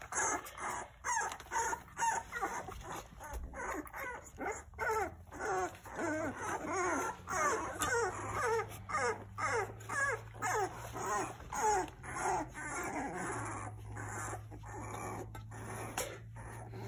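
Young bottle-fed puppies whimpering and squealing: a steady run of short, high, wavering cries, about two a second.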